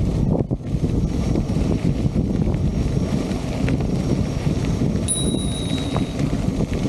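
Wind buffeting the microphone as an electric unicycle rides along a gravel path, a steady low rumble. About five seconds in, a bell rings once, a clear ring lasting about a second.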